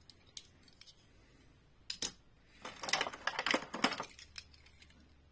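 Small die-cast toy cars clicking and rattling as they are handled over a plastic tray: a few faint clicks, a sharper one about two seconds in, then a quick cluster of clicks lasting about a second.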